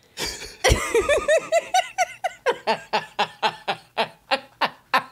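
A woman laughing hard, a long run of rhythmic "ha" pulses, about four a second, starting under a second in.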